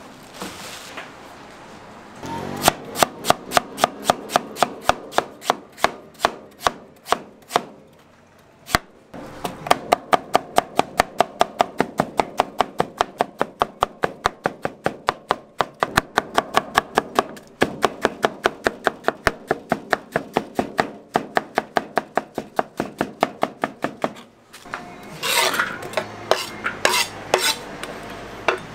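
Kitchen knife chopping food on a cutting board in a steady rhythm of about three chops a second, with a brief pause partway through and a few louder, uneven chops near the end.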